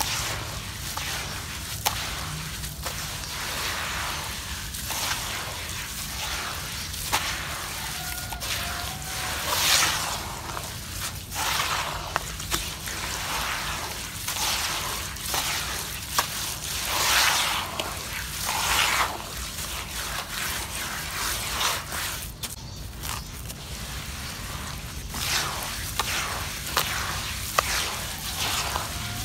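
Hands squeezing and kneading wet, gritty sand-cement paste in a metal basin: repeated wet squelching and crunching swells, one every second or two, with a few sharp clicks.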